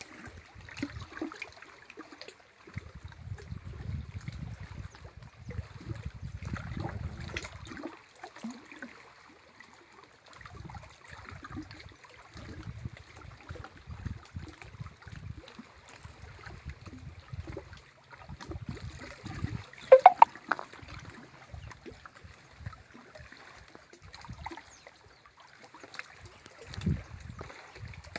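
Small waves lapping and splashing at the lake shore, with wind buffeting the microphone for a few seconds near the start. A short, loud pitched call cuts in about twenty seconds in.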